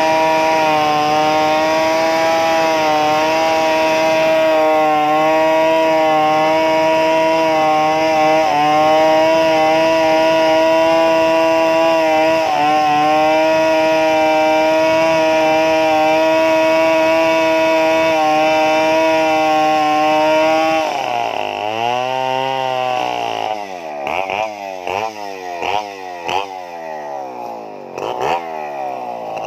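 Stihl 070 chainsaw's single-cylinder two-stroke engine running at a steady high speed, with slight wobbles in pitch. About two-thirds of the way in its pitch dips and climbs back. It then surges unevenly, the revs rising and falling in quick swoops.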